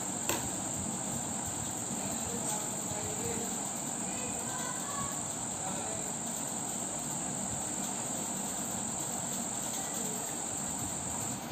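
A steady high-pitched whine, with one sharp click about a third of a second in; the whine stops just before the end.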